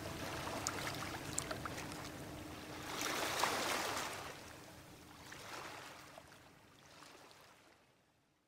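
Water washing and lapping in slow swells, with small clicks, fading out to silence near the end. A faint held note dies away in the first few seconds.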